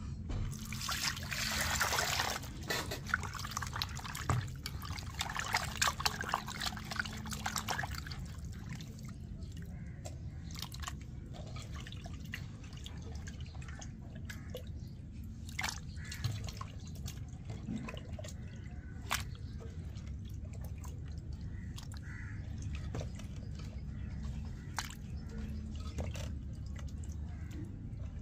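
Ginger, garlic, dried red chillies and onion frying in hot oil. There is a sizzle with crackling pops, densest over the first eight seconds, then thinning to scattered pops and clicks.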